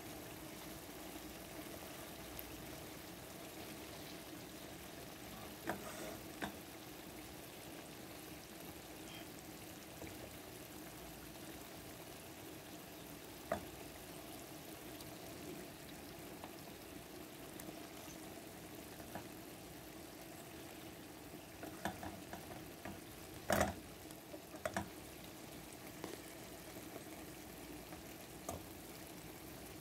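Chicken pieces simmering in a tomato-based masala sauce in a pan, a steady soft bubbling hiss with a few short sharp pops of bursting bubbles, the loudest about three-quarters of the way through. A steady low hum runs underneath.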